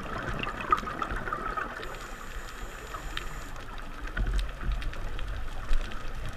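Underwater ambience recorded through a dive camera housing: a steady hiss dotted with faint scattered clicks, joined by a low rumble of water movement from about four seconds in.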